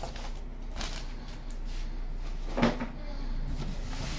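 Cardboard box flaps being pulled open and handled, with rustling and scraping and one louder knock about two and a half seconds in.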